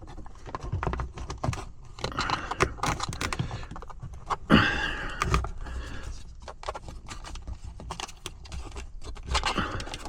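Hands working a cable and plastic interior trim panels, with rustling, scraping and small clicks as the trim is pushed back into place over a pinched wire. A louder sharp noise comes about halfway through.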